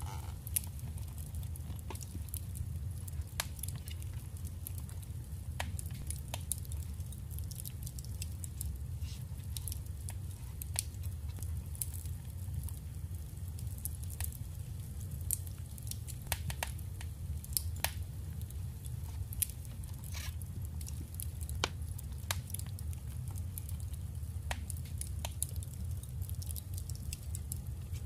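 Paper and small crafting materials handled at a desk, with scattered light clicks and soft rustles over a steady low hum.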